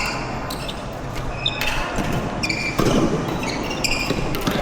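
Badminton rally in an echoing indoor hall: sharp racket hits on the shuttlecock and shoes squeaking on the court floor, the loudest hit about three seconds in.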